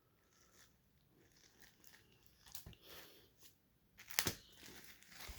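Comic books being handled and shuffled: faint rustling with a few short, sharp clicks, the loudest about four seconds in.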